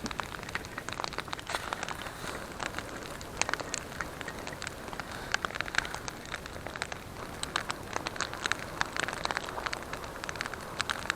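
Wood campfire crackling, with many irregular sharp pops and snaps over a steady hiss of burning.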